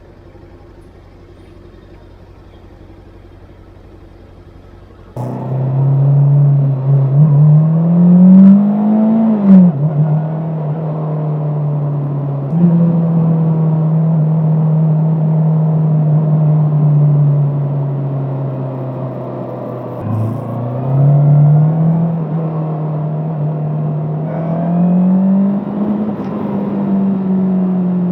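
A Bristol Venturi 500 motorcycle's engine under way. After a low, quiet hum for about five seconds, the engine sound comes in suddenly loud. Its note climbs as the bike accelerates and drops sharply at gear shifts, about four seconds in and again near twenty seconds, and holds steady between the shifts.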